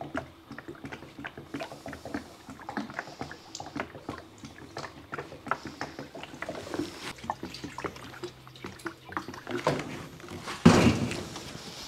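Liquid cutting-fluid concentrate pouring from a plastic 5-gallon bucket's spout onto steel slats and into a steel water tray, spattering in many small irregular splashes. A louder bump near the end as the bucket is tipped back upright.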